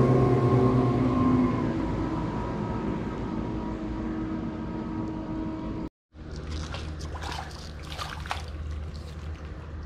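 Motorboat engine passing and fading away. About six seconds in, a clean cut is followed by a quieter low hum with a few scattered short clicks.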